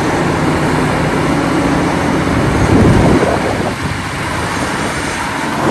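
Caterpillar 6015B hydraulic mining excavator working under load: its engine gives a steady low drone under a loud rushing noise, with a louder surge about three seconds in.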